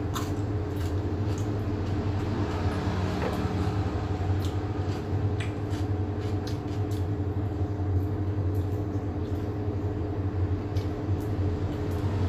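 A steady low mechanical hum with scattered light clicks.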